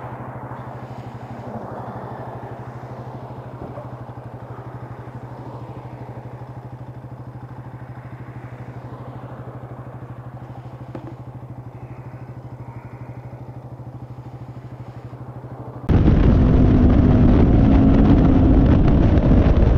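Motorcycle engine running at a steady, even pitch, fairly quiet. About three-quarters of the way through it cuts abruptly to a much louder ride on a different bike: wind rushing over the helmet microphone with the engine beneath.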